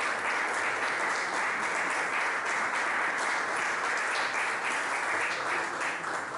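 Audience applauding, the clapping thinning slightly near the end.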